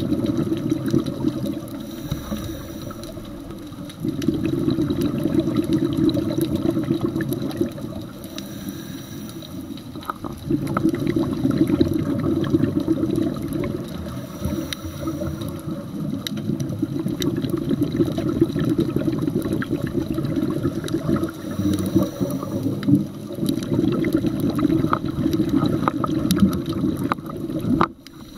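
Scuba regulator breathing heard underwater: bursts of exhaled bubbles bubbling for a few seconds at a time, with quieter gaps of about two seconds between breaths. The sound cuts off abruptly near the end.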